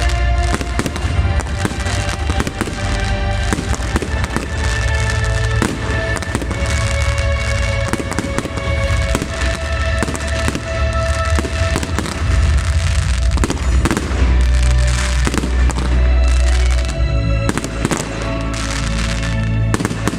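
Fireworks going off in rapid succession, sharp bangs and crackling, over music playing at the same time.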